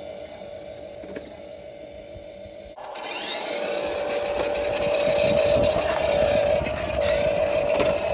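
A remote-control toy garbage truck drives along concrete: its small electric drive motor gives a steady whine, with the rattle of its plastic wheels on the pavement. The sound jumps louder about three seconds in, when the truck is close.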